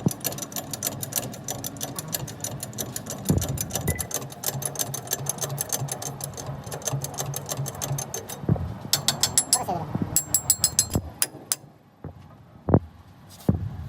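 Rapid, even mechanical tapping, several strikes a second over a low steady hum, stopping about eight seconds in; then two shorter runs of taps and a couple of single knocks near the end.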